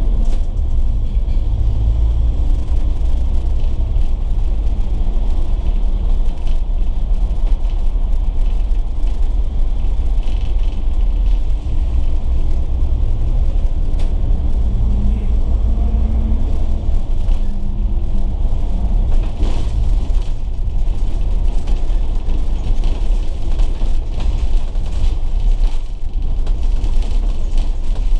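Volvo B9TL double-decker bus running along the road, a steady low rumble of engine and road noise heard from on board.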